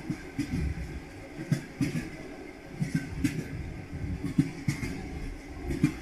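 Train wheels clacking over rail joints while rolling: low knocks, often in pairs, coming every half second to a second over a steady rumble.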